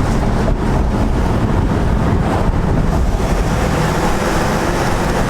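Cars cruising through a road tunnel: a steady, loud rumble of engine and road noise, with wind buffeting the microphone. Among it runs the V8 of a straight-piped Chevrolet SS with headers and no tune, at a steady cruise rather than revving.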